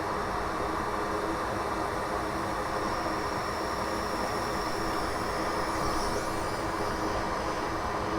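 Steady noise of a small fan or blower running at a soldering bench, with a faint high whine through the first several seconds.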